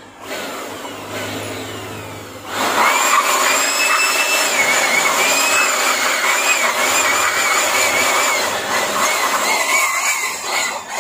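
A high-speed electric motor runs loud and steady, with a high whine that wavers up and down in pitch. A quieter hum comes first, and the full running sound sets in about two and a half seconds in.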